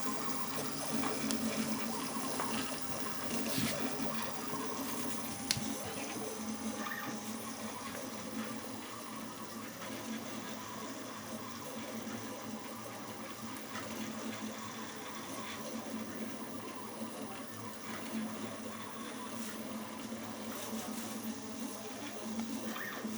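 3D printer running a print, its stepper motors whirring and buzzing in shifting patterns as the print head and extruder move. A single sharp click comes about five and a half seconds in.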